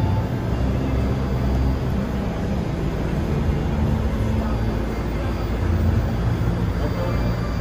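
Stopped New York City subway train idling at the platform with its doors open: a steady low hum and drone from the car's running equipment, carried through the underground station.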